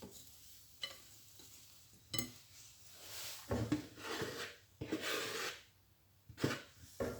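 A few sharp knocks of a cup and utensils against a mixing bowl, with a couple of seconds of rustling and scraping in the middle as flour is added to cake batter.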